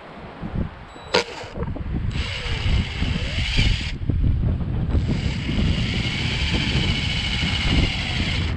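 Power drill driving screws into the keypad's mounting: a sharp click about a second in, then two runs of steady whirring, the second longer. Wind rumbles on the microphone throughout.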